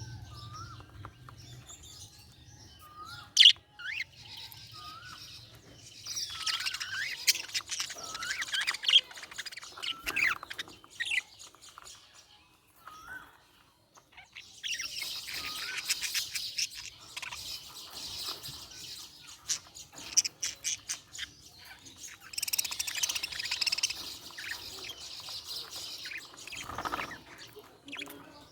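Budgerigar chirping and warbling in busy bouts of chatter, the happy chirping of a contented budgie. A few short rising whistles come first, and the chatter drops to a brief lull about halfway through.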